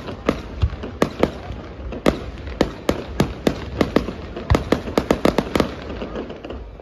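Aerial fireworks shells bursting in an irregular run of sharp bangs, coming fastest about two-thirds of the way through and thinning out near the end.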